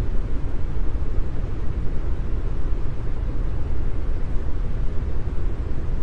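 Continuous brown noise: a steady, deep hiss, strongest in the low end and fading toward the highs, with no change or distinct events.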